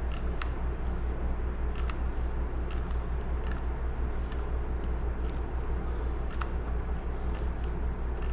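Faint, irregular small clicks from the vintage chainsaw's removed pull-starter assembly being handled and turned over, about one click a second, over a steady low hum.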